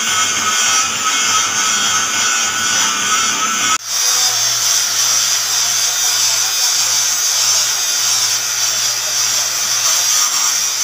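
Metal lathe boring the inside of a spinning steel part, the cutting tool giving a steady sound with a few held tones. About four seconds in it changes abruptly to a steady low machine hum with a high hiss.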